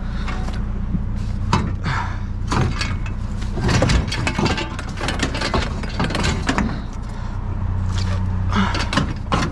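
Junk and scrap being handled and tossed about: a run of knocks, clatters and bangs, over a steady low hum from an idling vehicle engine.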